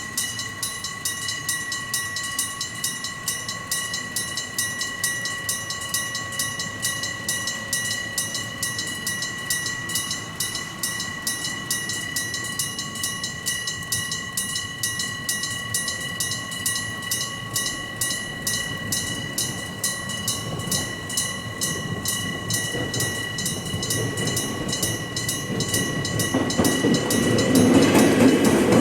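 Six electric-bell level-crossing warning bells ringing together in a rapid, continuous ding-ding. A train's running noise grows louder near the end.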